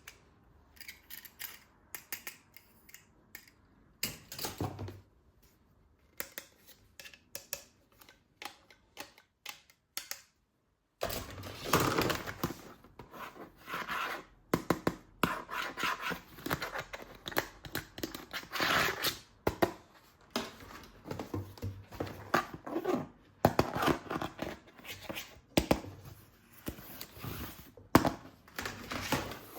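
Plastic toy packaging being handled and opened: scattered clicks and snips, then, after a sudden dead gap about ten seconds in, a dense run of crinkling and tearing.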